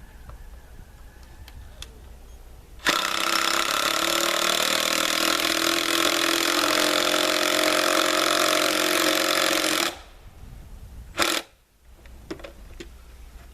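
Power driver running in one continuous burst of about seven seconds while backing screws out partway, then a short second burst about a second later.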